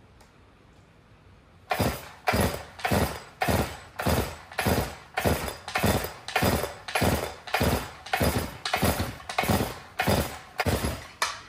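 Stihl MS 362 two-stroke chainsaw being pull-started over and over, about seventeen quick pulls in a steady rhythm starting near two seconds in, with the engine turning over but never catching. It is hard to start, which the owner puts down to a completely clogged air filter and perhaps a fouled spark plug.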